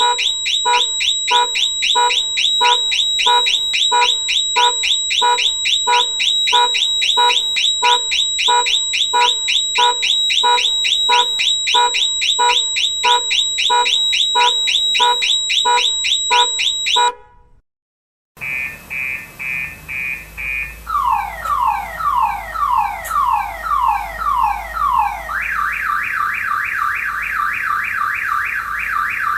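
Car alarm sirens going off. First a fast, steady electronic chirping pattern, which cuts off abruptly about 17 seconds in. After a second of silence a second alarm runs through its tone cycle: a warbling tone, a run of falling whoops, then a fast pulsing tone.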